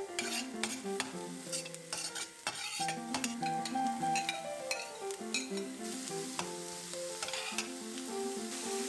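Diced onion sizzling in oil in a wide stainless-steel sauté pan, with a metal spoon stirring, clinking and scraping against the pan. Light background music plays underneath.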